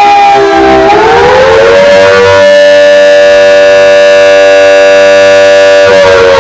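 Fire station siren sounding a test call, very loud. Its wail climbs about a second in to a high pitch, holds steady for around four seconds, then begins to fall near the end.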